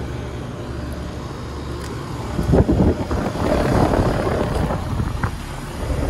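Outdoor air-conditioning condenser units running with a steady low hum, then from about two seconds in a louder, gusty rumble of wind buffeting the microphone as it comes close over a unit's fan grille.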